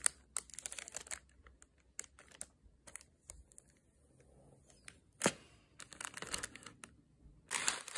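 Faint, scattered clicks and taps of plastic bead packets and plastic bead boxes being handled, with one sharper click about five seconds in.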